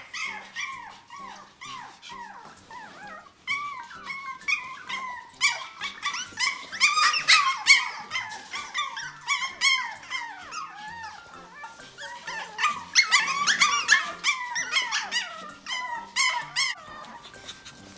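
A litter of Pomeranian puppies yipping and whining, many short high-pitched calls overlapping one another, with louder flurries about a third of the way in and again past the middle.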